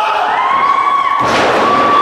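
One thud on the wrestling ring canvas about halfway through, as a spinning headlock elbow drop slams two wrestlers onto the mat. A small crowd cheers throughout, with one long held yell.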